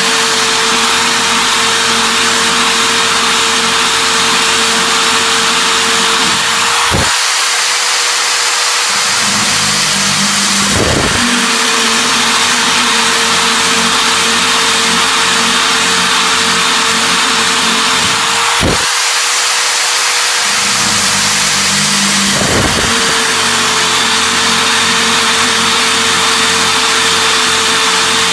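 Power drill running a brazed diamond core bit, cutting holes in succession with a steady grinding hiss. The motor winds down twice, about 7 and 19 seconds in, then starts up again a couple of seconds later for the next hole.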